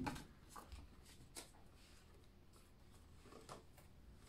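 Faint rustling of paper banknotes being handled and slipped into a binder envelope, with a few soft ticks of paper.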